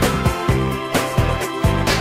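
Instrumental karaoke backing track of a Bulgarian pop song, with a steady drum beat over bass and chords.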